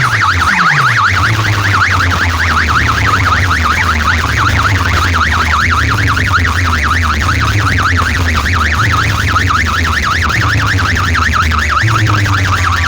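Competition DJ sound system playing loudly: a fast-warbling electronic siren tone over a heavy bass line that steps between notes.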